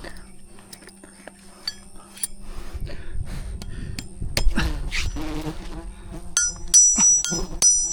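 Wild bees buzzing in a steady hum, with scattered clicks. Near the end, bright ringing clinks start repeating.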